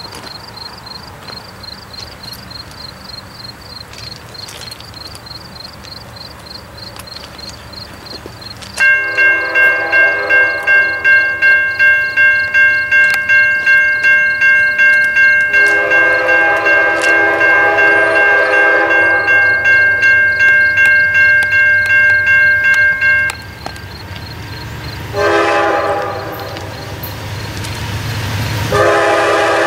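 CSX freight locomotive's multi-chime air horn: one long blast of about fourteen seconds starting about nine seconds in, a short blast a couple of seconds later, and another blast starting near the end. Before the horn a bell rings steadily over the locomotive's running sound.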